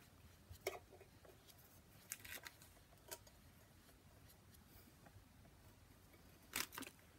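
Near silence broken by a few faint, short taps and rustles from a plastic makeup compact being handled and fingertips patting powder on the face; the strongest taps come near the end.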